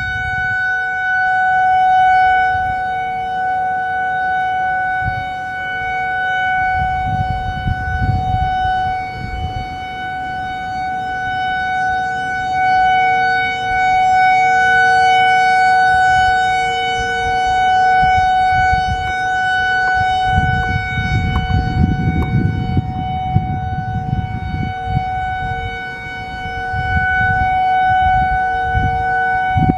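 Whelen WPS-4004 electronic outdoor warning siren sounding its Alert signal: one steady, unchanging tone held throughout. Gusts of wind rumble on the microphone under it.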